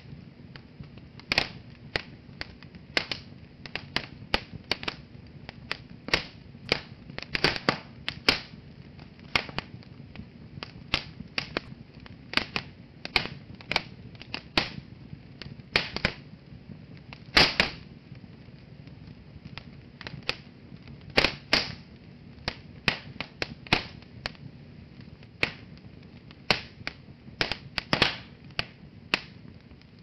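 Wood fire crackling in a fireplace: irregular sharp pops and snaps, several a second, some much louder than others, over a low steady background.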